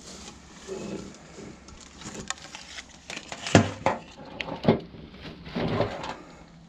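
A discarded electric fan being handled and picked up: several sharp knocks and short clattering noises of its plastic and metal parts, the loudest a little past the middle.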